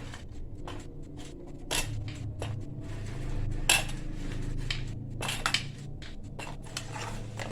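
Light clatter of kitchen dishes and utensils: a dozen or so scattered, uneven clicks as biscuits are handled against a small syrup pot and plates, over a low steady hum.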